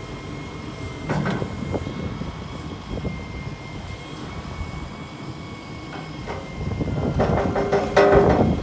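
A Volvo wheeled excavator's diesel engine and hydraulics working, under a steady high whine. The machine gets louder briefly about a second in, and again for longer near the end as the engine comes under load.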